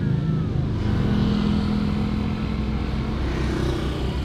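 A motor vehicle's engine running, holding a steady pitch for a couple of seconds in the middle.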